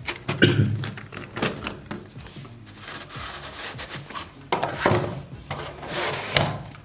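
Cardboard rubbing and sliding as the outer sleeve of a phone's retail box is handled and pulled off, with a few light knocks.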